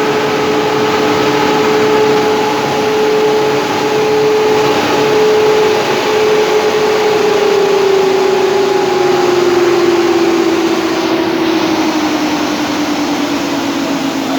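Quadro 420BIG timber-beam profiling moulder running with a loud, steady whine over broad machine noise. About halfway through, its pitch begins to sink gradually and keeps falling to the end.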